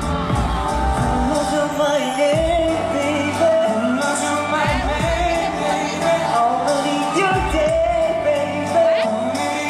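A live pop ballad played through a concert sound system: a male singer holds long, sliding notes over a slow band accompaniment with deep bass notes.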